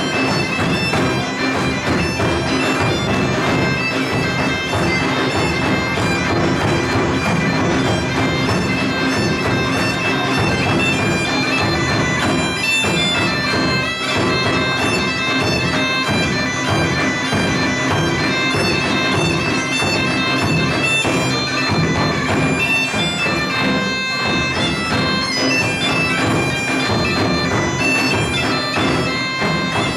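Portuguese bagpipe (gaita de foles) playing a lively folk tune over its steady drone, with a snare drum and a large bass drum beating time.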